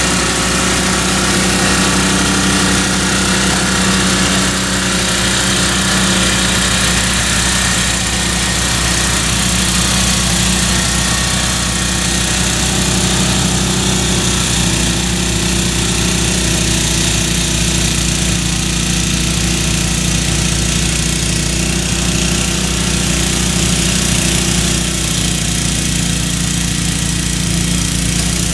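MTD two-stage snowblower's Tecumseh engine running steadily under load while it throws heavy wet snow.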